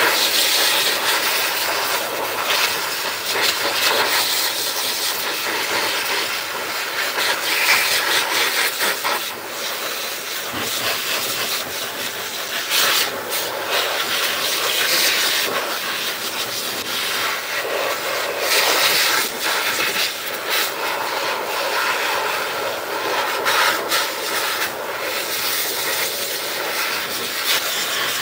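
Pet grooming blower dryer blowing a stream of air through its hose nozzle into a long-haired cat's coat: a steady rushing hiss that swells and dips as the nozzle moves over the fur.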